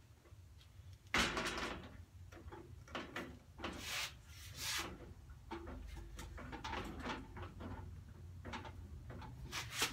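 Clunks and scrapes of a MIG welder being set down and shifted on the steel top shelf of a welding cart, a series of separate knocks, the loudest about a second in.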